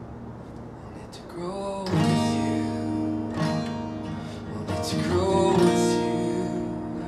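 Acoustic guitar being strummed, softly for the first second or so and then in fuller, louder chords from about two seconds in.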